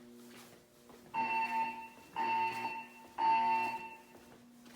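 Siemens MXL-V fire alarm speakers sounding the temporal evacuation tone: three beeps about a second apart, starting about a second in, then a pause. A faint low hum runs underneath between the beeps.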